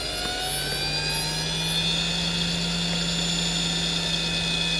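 Hitachi DK32CJ-36MC 10,000 rpm SCSI hard drive spinning up: its high whine rises in pitch and levels off about two seconds in, then holds steady at full speed with the bearing noise of a well-worn drive. A low steady hum comes in about half a second in.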